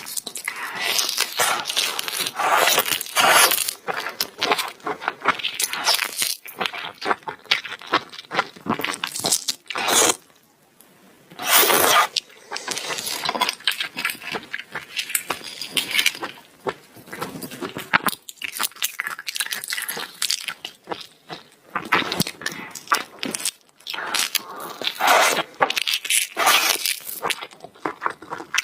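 Close-miked eating: chewing and crunching food in a dense run of crackly clicks, with a brief pause about ten seconds in.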